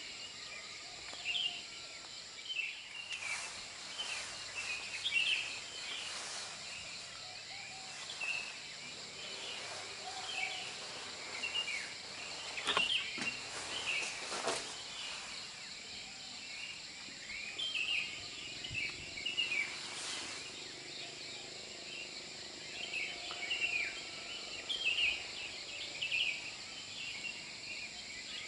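Evening outdoor chorus: small birds chirping over and over, with a steady high insect drone beneath and a few short clicks.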